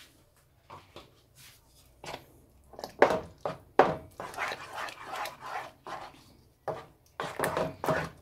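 Wooden spatula stirring thick zucchini caviar and mayonnaise in a saucepan: repeated wet stirring strokes and scrapes against the pot, starting about two seconds in, with a short pause shortly before the end.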